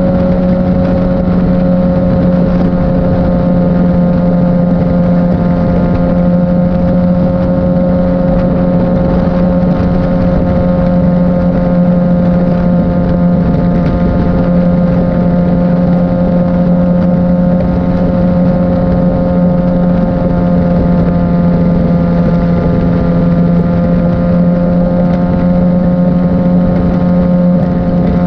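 Liter-class sport bike engine cruising at steady revs, its pitch holding level throughout.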